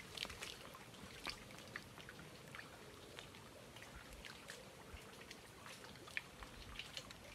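Faint, irregular drips and small splashes of water, several a second, over a quiet background.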